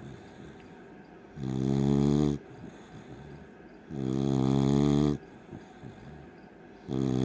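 Beagle snoring in a steady rhythm: a pitched snore about a second long roughly every two and a half seconds, three in all, the last starting near the end.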